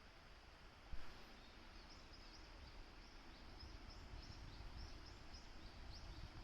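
Faint, steady rush of running water, with a small bird giving short high chirps a few times a second from about two seconds in. A single soft knock about a second in.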